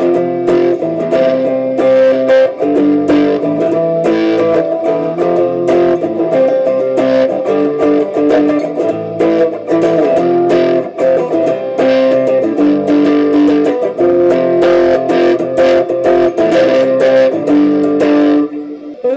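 Electric guitar played through a Lekato Tank-G multi-effects pedal and amplifier, on preset B1: a steady run of picked notes and chords, with a brief break near the end.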